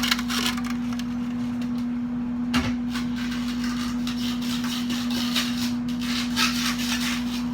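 Plastic microwave cookware pieces, stuck one inside the other, rubbing and clicking as they are worked at, with one sharp knock about two and a half seconds in. A steady low hum runs underneath.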